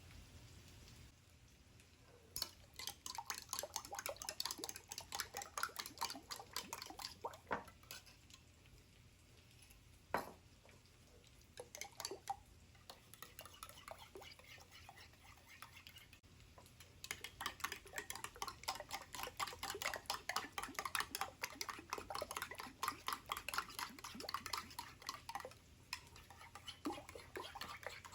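Kitchen utensils working against a dish or pan: long runs of rapid scraping and clicking strokes, with a few single knocks between them.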